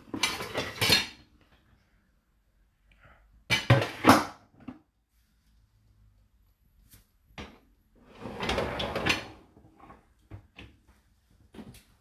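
Plates and a stainless steel pan clattering against each other and the wire rack of a dishwasher as they are handled: three bursts of about a second each, with small clicks and knocks between them.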